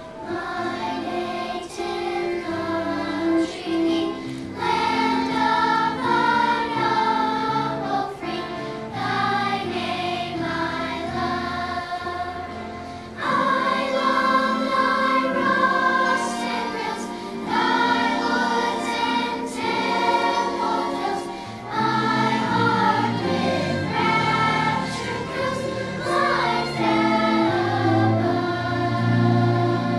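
Children's choir singing a song in unison over an instrumental accompaniment that holds low sustained notes beneath the voices.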